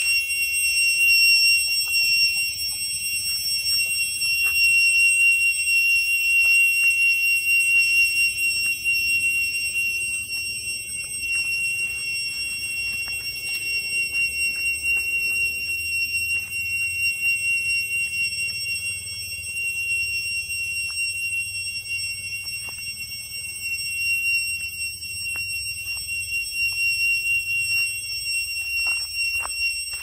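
Cicadas singing in a loud, steady, high-pitched drone that never breaks, several shrill tones held together.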